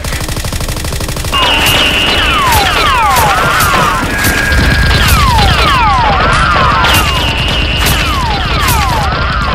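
Action-film gunfire sound effects dubbed over a Nerf blaster battle: a rapid burst of automatic fire, then repeated shots with high ricochet whines falling in pitch, over background music.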